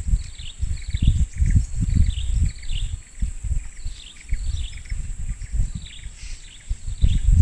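Tropical forest ambience: birds calling in repeated short downward chirps, several a second, over a steady high-pitched insect drone. Irregular low rumbling on the microphone is the loudest part.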